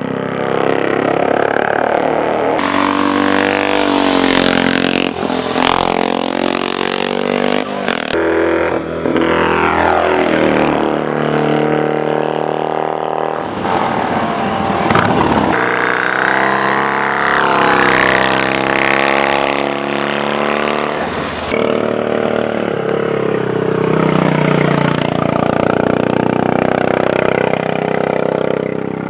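Racing motorcycle engines revving hard as the bikes accelerate and pass, the pitch climbing and then sweeping down as each one goes by. The sound changes abruptly several times.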